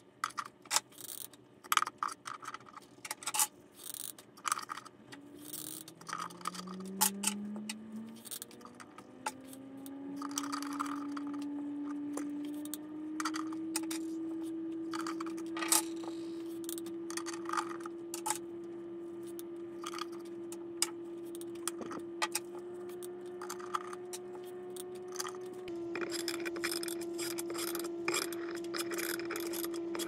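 Rough stones clicking and knocking against each other and against a glass tank's black board base as they are set in place one at a time, with some scraping. Under them a steady hum rises in pitch over several seconds and then holds.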